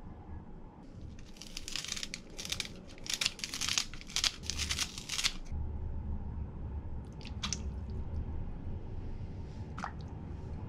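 Paper towel crinkling and rustling in the hands for several seconds. It stops about halfway through, and a few light taps follow.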